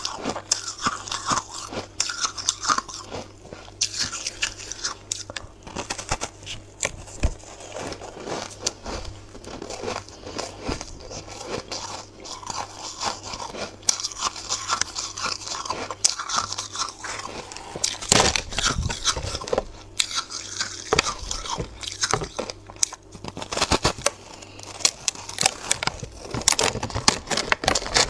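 Close-miked biting and crunching of soft, powdery ice blocks layered with matcha powder, one crisp crunch after another with chewing in between. The crunching swells into louder clusters about two-thirds of the way in and again near the end.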